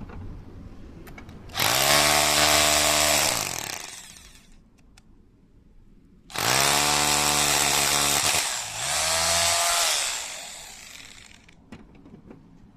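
Makita HR2631F rotary hammer's electric motor run twice with no load: each time it spins up quickly, runs steadily, then winds down in pitch. The second run sags briefly partway through and picks up again before winding down.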